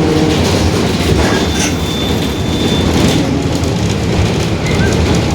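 Mercedes-Benz OF-1721 BlueTec 5 city bus in motion: steady diesel engine and drivetrain rumble with the rear differential growling.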